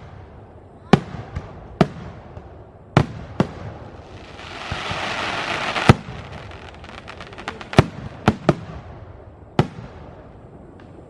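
Fireworks display: about nine sharp bangs of aerial fireworks bursting at irregular intervals. A hissing rush swells for about two seconds to the loudest bang near the middle, and a quick run of crackles follows.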